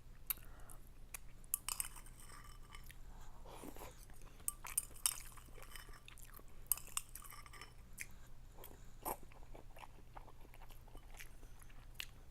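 A person chewing a mouthful of ramen noodles: irregular wet mouth smacks and small clicks, with no steady rhythm.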